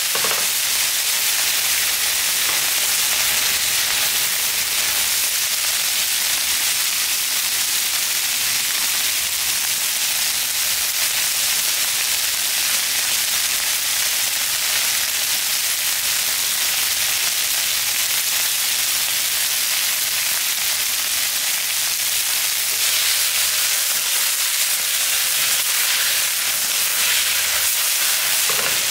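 Cubes of beef searing in hot oil in a nonstick frying pan, sizzling steadily.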